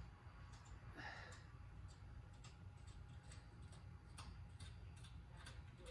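Near silence: a low steady hum with faint, scattered small clicks and ticks.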